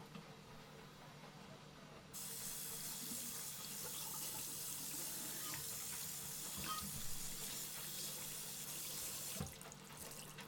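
Tap water running into a sink, turned on about two seconds in and off near the end, with a few light clinks while it runs.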